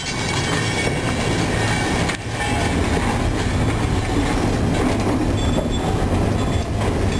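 Loaded freight hopper cars rolling slowly along the track during switching, their wheels rumbling and clicking on the rails, under a steady low hum from a diesel locomotive's engine.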